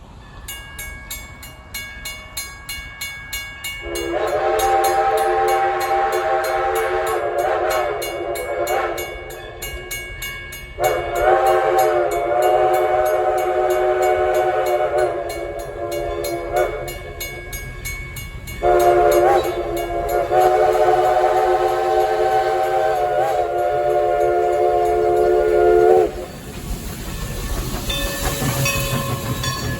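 Train's multi-note air horn sounding three long blasts, each a held chord of several tones, over a fast, regular clanging beat.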